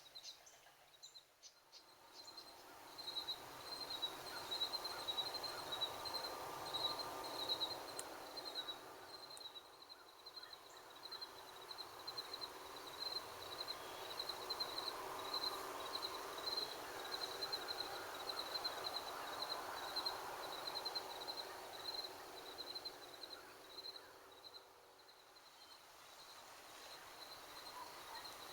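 Faint outdoor ambience: an insect trilling steadily in rapid high pulses, starting a few seconds in, over a soft distant hum that swells and fades.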